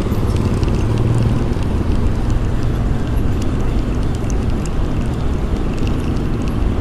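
Steady low rumble of wind buffeting the microphone, with faint scattered ticks.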